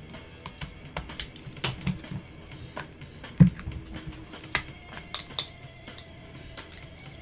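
Gloved hands handling trading cards and plastic card holders: a run of light clicks and taps, with one louder knock about three and a half seconds in. Background music plays underneath.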